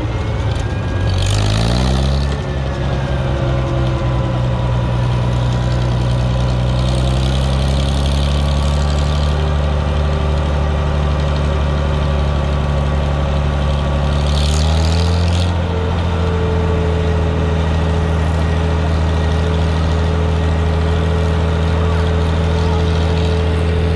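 Vintage tractor engine running steadily under the camera. It speeds up twice, its note rising about a second in and again about fifteen seconds in, and then holds steady.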